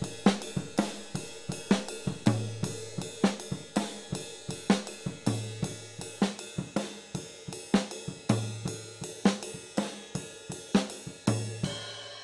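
Rock drum kit playing on its own, cymbal and hi-hat strokes about twice a second with a deep drum note every so often, then stopping near the end with a cymbal ringing out.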